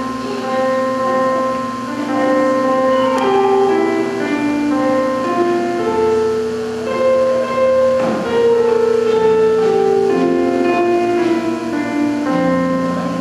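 Instrumental music: a keyboard instrument playing slow, sustained chords with a stepwise melody on top.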